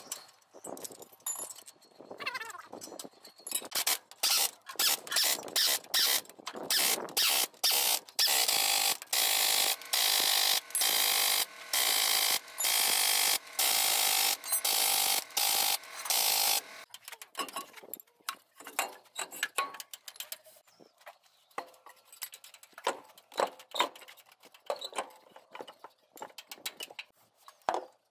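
Impact wrench running the bolts of a truck wheel-hub cap home in a run of short loud bursts, followed by scattered lighter clicks and clinks of tools on the hub.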